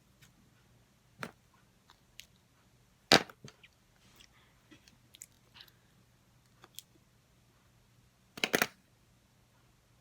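Handling noise: scattered sharp clicks and knocks, the loudest about three seconds in, and a quick run of clacks near the end.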